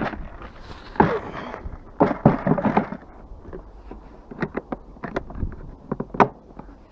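Knocks and clatter of scrap items being handled and set down: a few heavy knocks in the first three seconds, then a run of lighter clicks and taps.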